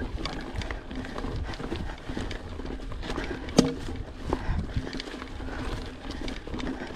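Mountain bike ridden over a rocky dirt trail: tyres crunching over dirt and stones, with uneven rattles and knocks from the bike, and one sharp knock about three and a half seconds in.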